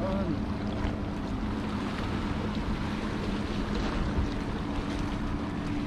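Wind buffeting the microphone over the wash of sea waves against the rocks, with a faint steady low hum.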